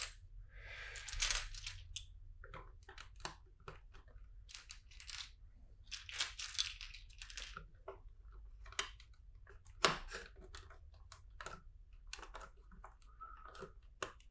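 Small plastic LEGO bricks being handled and sorted: a string of sharp clicks and rattling rummages through loose pieces, with one louder click about ten seconds in.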